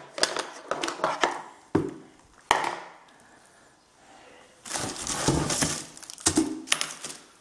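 Unpacking noise from a hard plastic brush-cutter guard and a cardboard box being handled. A few sharp knocks come in the first few seconds, then a short lull, then a stretch of scraping and crinkling of cardboard and plastic wrap.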